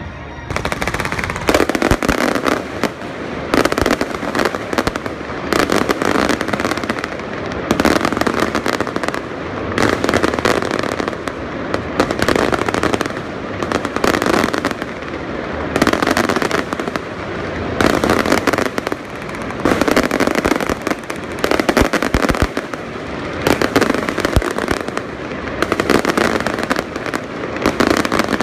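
Fireworks display: a dense barrage of bangs and crackling shells, swelling in waves about every two seconds.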